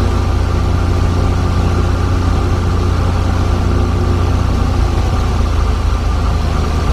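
Light single-engine propeller plane's engine and propeller droning steadily, heard from inside the cockpit while descending toward a runway.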